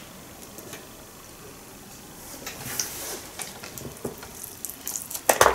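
Close-miked wet mouth noises of a sushi roll being bitten and chewed, with small clicks, starting about two seconds in after a quiet stretch, and a sharp click near the end.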